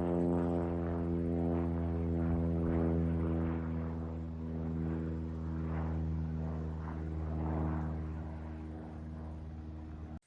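Low-flying propeller airplane passing overhead: a steady engine-and-propeller drone that slowly fades, then cuts off suddenly near the end.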